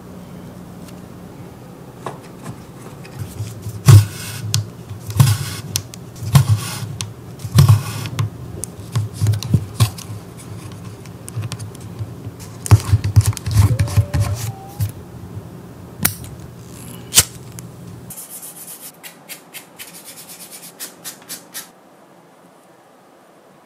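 Hand leatherworking sounds: irregular knocks, rubs and scrapes of tools and leather against a work surface over a low steady hum. After an abrupt change about three-quarters of the way through, a quick run of small clicks follows.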